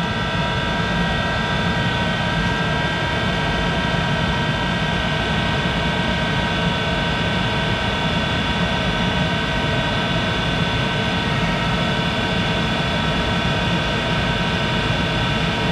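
1951 Monarch 10EE lathe with its spindle running steadily at speed, around 1200 RPM and not cutting: a constant whine of several high tones over a low mechanical hum.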